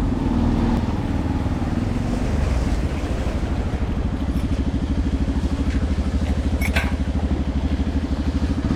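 Motorcycle engine running steadily under way, a fast even throb, with a brief knock about two-thirds of the way through.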